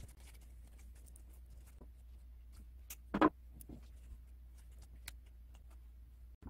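Faint rustling of satin ribbon and small ticks as fingers twist a thin wire around the gathered centre of a bow, over a low steady hum. One brief louder sound comes about three seconds in.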